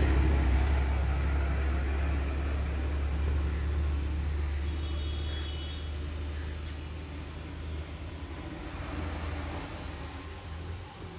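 JCB 3DX backhoe loader's diesel engine idling: a steady low rumble that grows gradually fainter.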